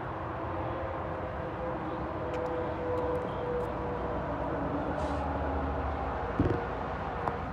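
Steady engine hum of nearby traffic, its tones slowly drifting lower. A single close thump comes about six and a half seconds in.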